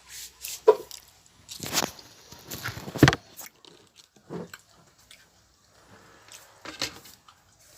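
Close-up eating sounds of someone biting and chewing chicken feet: irregular bites and chews, the loudest a little under a second in and about three seconds in.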